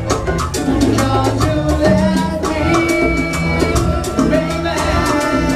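Salsa band playing live. Bongó, congas and timbales keep a busy rhythm over bass and piano, and the wind section holds sustained notes, one of them high and long a little past halfway.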